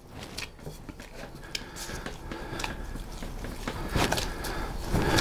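Bread dough being balled up and pressed by a nitrile-gloved hand in a ceramic mixing bowl: an irregular run of soft, sticky slaps and clicks that grows louder toward the end.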